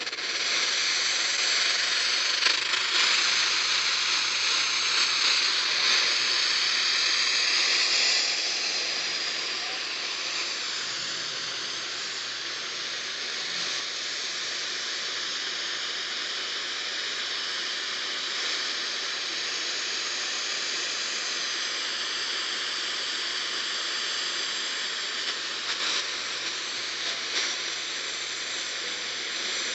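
Steady radio static hiss from a receiver with no programme audio, over a faint low hum, with a few small crackles near the end.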